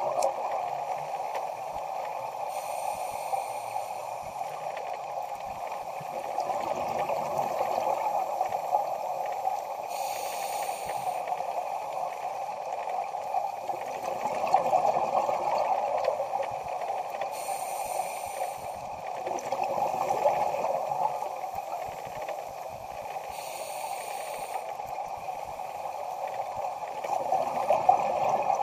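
Underwater ambience: a steady muffled water rush, broken about every seven seconds by a short burst of bubbling, four times, the rhythm of a scuba diver's exhaled bubbles.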